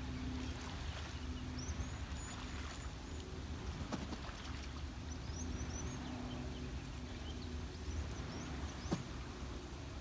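Canada geese splashing water as they bathe on a pond, over a steady low rumble. Faint high chirps come a few times, and there is a sharp click near the end.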